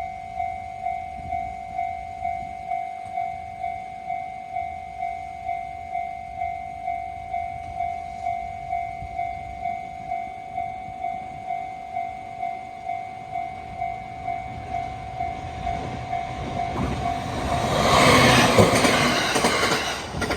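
Japanese level-crossing alarm bell ringing at about two rings a second while the crossing is closed. Near the end a short two-car train passes, its rumble and wheel clatter on the rails growing loud, and the bell stops as the train goes by.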